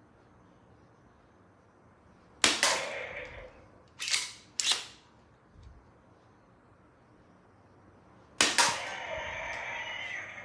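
3D-printed foam-dart blaster powered by an elastic cord, fired four times with sharp snapping cracks: one about two and a half seconds in, two close together about four seconds in, and one near the end. The last shot is followed by a ringing rattle lasting about two seconds.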